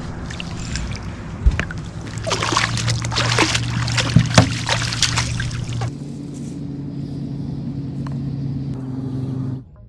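A boat motor humming steadily, with a burst of splashing, clicking and knocking from about two to six seconds in as a hooked catfish is landed. The hum changes about six seconds in, and the sound cuts off just before the end.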